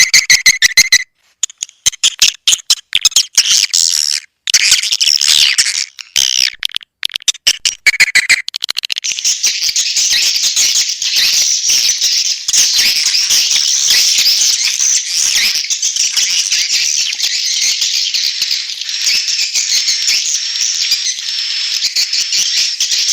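Swiftlet lure call recording: rapid, high clicking chirps in short runs broken by brief silences, then from about eight seconds in a dense, continuous twittering of many swiftlets.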